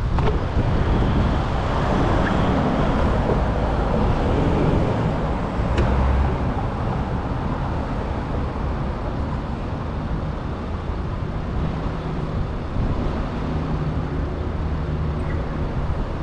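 Road traffic with a steady rush of wind noise, heard from a moving bicycle. A faint engine hum comes in during the later seconds.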